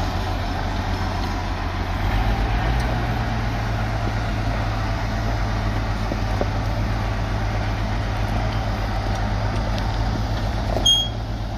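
1951 Oliver 77 tractor's six-cylinder engine running as the tractor is driven. It holds a steady low engine note that gets louder about two seconds in. A brief high-pitched chirp comes near the end.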